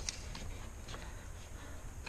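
A few faint clicks and light knocks from handling interior trim pieces, over a low steady background hum.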